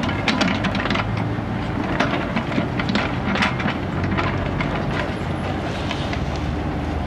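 Kubota mini excavator digging: its small diesel engine runs steadily under load while the steel bucket scrapes and knocks into dry, stony soil, giving irregular clanks and scrapes over the engine.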